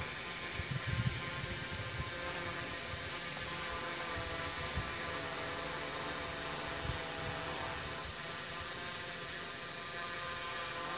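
F450 quadcopter drone hovering overhead, its four motors and propellers giving a steady multi-tone whine, holding still in GPS position hold. Irregular low buffeting runs underneath.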